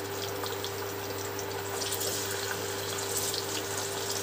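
Fish heads rubbed with turmeric and salt sizzling and spattering in hot mustard oil, a steady hiss with scattered crackles that grow denser about two seconds in. A steady hum runs underneath.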